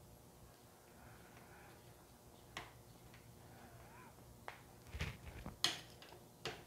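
Faint, scattered clicks and taps of a hex key working small bolts into a metal bracket, a few irregular ticks over several seconds. A dull knock comes about five seconds in, and the sharpest click follows soon after.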